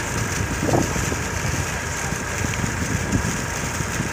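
Diesel engine running steadily, driving the pump of a newly bored tube well that is now bringing up water.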